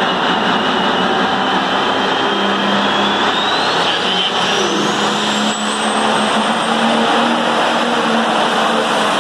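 Pulling tractor's engine running hard and loud at the start of a pull, with a thin high whine that climbs steadily over a few seconds and then holds, the turbocharger spooling up.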